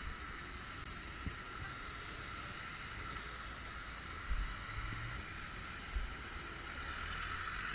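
Steady background traffic and wet-road noise with wind on the microphone, and a few dull low thumps, the loudest about four seconds in.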